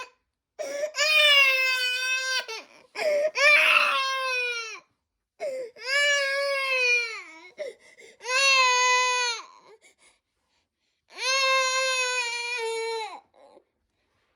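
A baby crying in five long wails, each about one and a half to two seconds, with short breaths between them.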